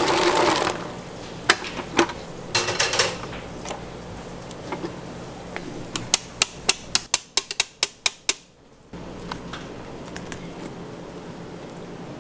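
A stand mixer's wire whisk running in a steel bowl, cutting off within the first second. Then metal clinks as the bowl and whisk attachment are handled, and about halfway through a quick run of about ten sharp metal taps, some five a second, as the wire whisk is knocked against the stainless steel bowl to shake off the whipped mixture.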